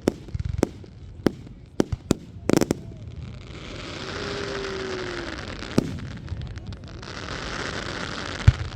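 Fireworks going off: a quick string of sharp bangs from bursting shells, then a long dense crackling hiss, broken by single bangs about six seconds in and near the end.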